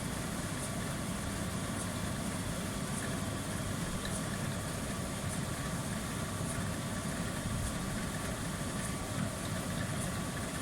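Indesit 7 kg tumble dryer running steadily, its drum turning and fan blowing with a faint steady whine. This is its ordinary running sound: the strange noise the machine is being checked for, which later turns out to come from its pump, has not started yet.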